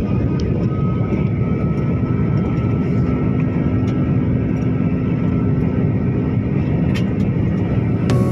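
Steady drone of an airliner's engines: a dense low rumble with a faint, steady whine above it and a few small clicks.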